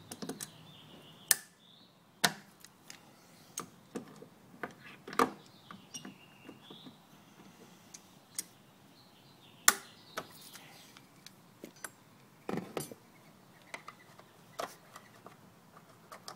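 Hand tools prying and pulling at plastic expansion plugs in a car's fender cover: irregular sharp clicks, snaps and knocks of metal on plastic, with faint squeaks between them.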